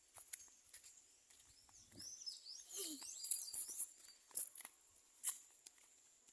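Small birds chirping in a quick run of rising and falling notes from about two to four seconds in, over scattered light clicks and rustles.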